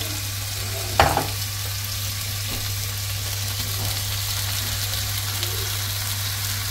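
Halved chicory frying in vegetable oil in a pan, a steady sizzle.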